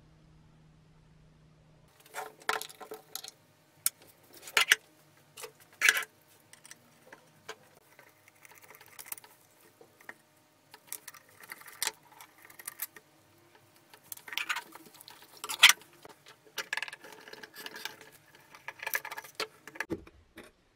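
Metal parts of a 1957 Helo Leuchten steel task lamp clinking and rattling as it is taken apart by hand, with screws and fittings unscrewed and handled. Irregular clicks and clinks begin about two seconds in, a few of them loud separate knocks.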